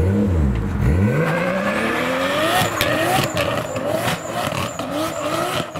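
Modified car's engine revving hard: a deep burst of revs first, then the note climbing and falling again and again, about twice a second, as the car accelerates away.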